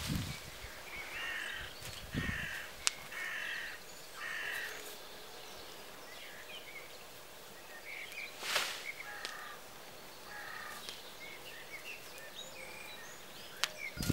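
A crow cawing: a run of about five harsh caws in the first few seconds, then two more later, with small birds chirping. A brief rustle of branches being dragged comes about halfway through.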